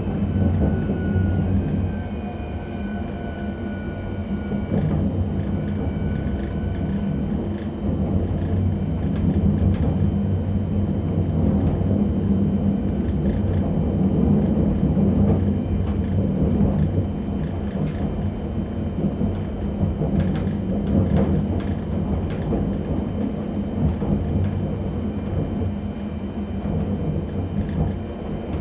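ČD class 640 RegioPanter electric multiple unit running over jointed track and points, heard from the driver's cab: a steady low rumble with a faint high whine that dies away in the first few seconds, and a quick run of wheel clicks over points about twenty seconds in.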